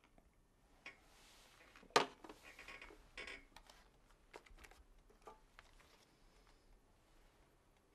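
Quiet handling sounds in a small room: rustling, one sharp knock about two seconds in, then scattered small clicks.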